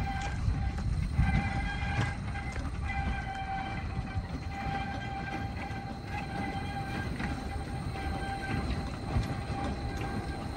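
Narrow-gauge steam locomotive hauling small passenger coaches along a quarry line: a steady low rumble of the running train, with a high ringing tone that breaks off and returns several times.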